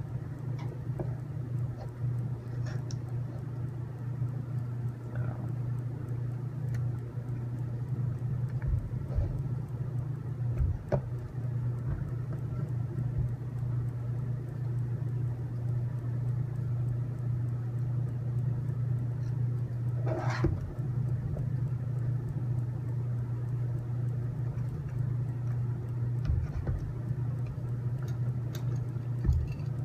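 A steady low mechanical hum with scattered faint clicks and taps of small plastic and metal robot-kit parts and screws being handled, and one louder tap about twenty seconds in.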